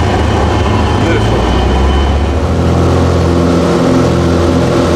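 Single-engine Cessna's piston engine and propeller heard from inside the cabin, running at low power on the touchdown, then its note changes and strengthens about two and a half seconds in as power is added to climb away on the touch-and-go.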